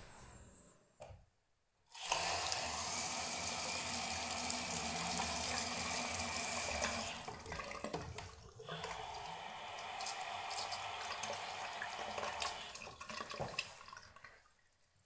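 Tap water from a two-handle sink faucet running into a small ceramic vanity basin: turned on about two seconds in, it eases off briefly after about seven seconds, runs steadily again, and is shut off shortly before the end.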